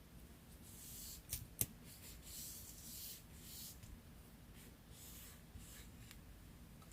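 Faint rustling and scraping of paper being handled and worked for a collage, in several short stretches, with two sharp clicks about a second and a half in.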